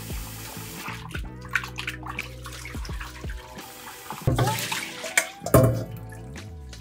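Kitchen tap running into a stainless steel bowl while a hand swishes raw shrimp around to rinse off the salt and starch marinade, with louder splashing and knocks between about four and six seconds in. Background music plays underneath.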